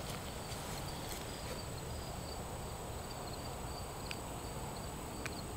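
Insects chirping in a steady, evenly repeating high-pitched pattern over a low outdoor hum, with two faint clicks near the end.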